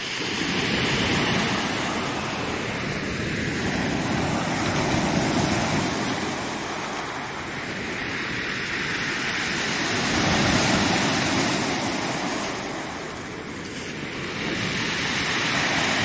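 Rough post-storm Black Sea surf breaking onto a pebble beach and washing up the shore. It comes in four surges a few seconds apart, each swelling and then fading.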